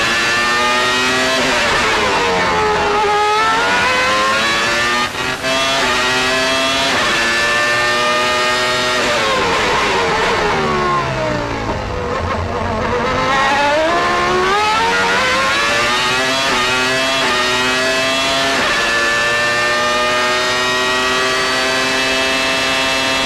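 Renault V10 engine of a 1995 Williams Formula 1 car at racing speed, heard onboard. Twice its pitch falls steeply as the car brakes and shifts down for a corner, then it climbs again in steps through the upshifts, holding high and steady near the end.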